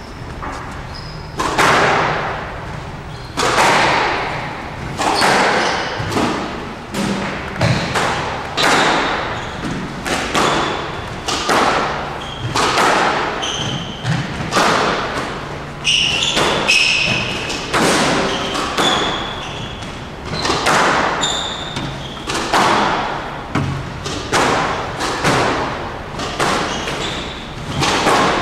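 Squash ball being struck by rackets and hitting the court walls in a continuing rally: sharp, echoing impacts about once a second. Short high squeaks fall between the hits.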